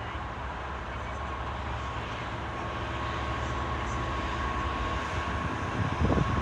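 Class 66 diesel freight locomotive approaching, its engine running with a low steady drone that grows gradually louder, and a thin steady whine over it from about a second in. Loud buffeting wind noise on the microphone begins near the end.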